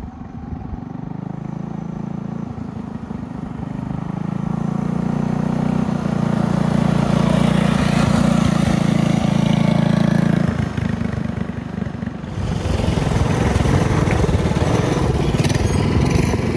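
Small single-cylinder four-stroke engines of two TrailMaster mini bikes (an MB200 and a Hurricane 200X) ride up and pass close by, rising to their loudest and then dropping away sharply about ten seconds in. Near the end a mini bike engine runs loud and close again as one bike rolls slowly past.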